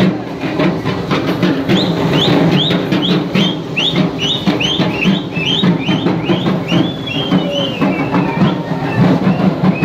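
Procession music: loud, dense drumming throughout. From about two seconds in, a high piping tone plays over it in quick repeated up-and-down swoops, about three a second. Near the end it stretches into one longer wavering note.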